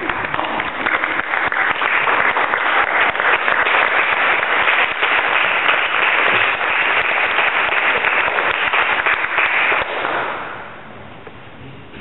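Audience applauding: dense clapping that swells in the first second and dies away about ten seconds in.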